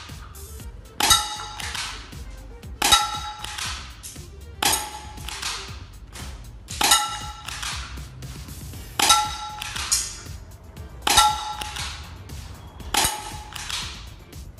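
KWC K17 spring airsoft pistol fired seven times, about every two seconds, each BB striking an enamelled metal bowl with a ringing clang.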